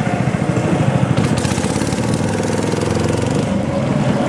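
Diesel engine of a DC688Q combine harvester running steadily under way as the machine drives through a flooded paddy, heard from on board. A hiss rises over it for about two seconds in the middle.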